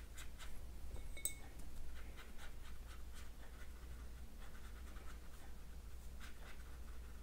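Watercolour brush stroking and blending on wet watercolour paper: soft, quick scratchy strokes, several a second. A brief light clink sounds just after a second in.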